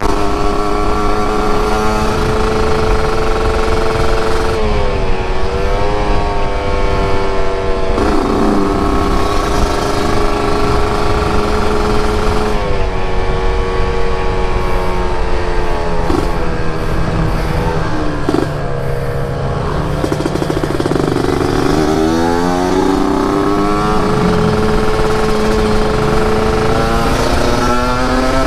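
Yamaha RX-King 135's two-stroke single-cylinder engine running under way. Its note holds steady for stretches, then dips and climbs back again several times, rising near the end.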